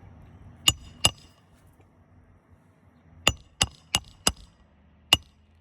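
Hammer driving a roofing nail through a shingle-repair nailing tool under a composition shingle. There are seven sharp, ringing metallic blows: two just under a second in, four quick ones in the second half, and one near the end.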